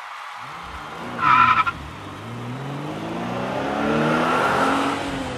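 Car engine revving up, its pitch rising steadily over several seconds, with a short, loud tire squeal about a second in.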